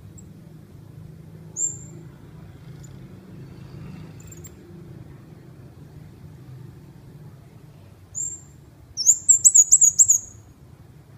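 A caged bulbul (ốc mít) calling: one short high chirp about a second and a half in, another about eight seconds in, then a rapid run of high notes lasting about a second and a half near the end.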